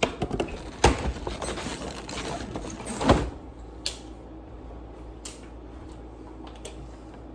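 A couple of sharp slaps or knocks, then a few seconds of rustling and scuffling of people moving about, followed by a few separate clicks.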